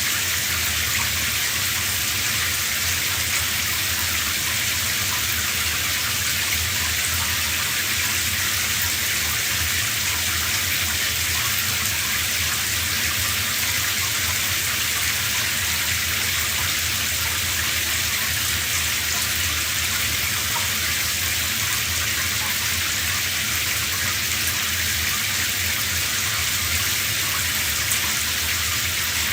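Shower water spraying steadily, with an even hiss of falling water that carries no breaks or changes.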